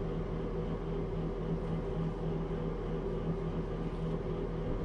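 Steady low mechanical hum with a few constant tones, unchanging throughout: room background noise from a running appliance.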